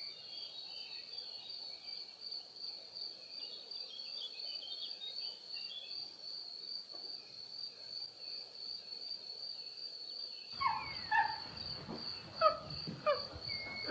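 Steady high-pitched insect trill throughout. About ten seconds in, a louder stretch begins with a rumble and several short animal calls that fall in pitch.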